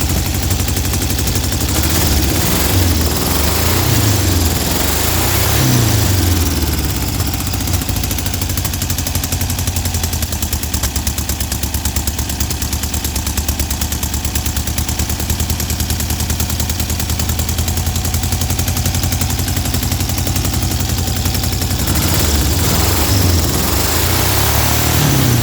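Air-cooled 1835cc VW flat-four with dual Kadron carburettors running at idle, blipped up in revs and back down a couple of times in the first few seconds and again near the end.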